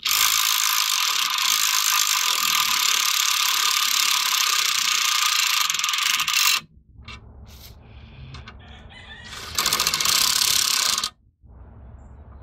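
Cordless impact wrench with a 3/4-inch deep socket hammering locking nuts tight onto a U-bolt. It runs in one long burst of about six seconds, then a second short burst about ten seconds in.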